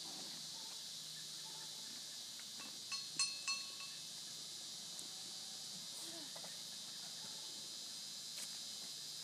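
Steady high-pitched chirring of insects in a grassy field, with a few brief sharp clicks about three seconds in.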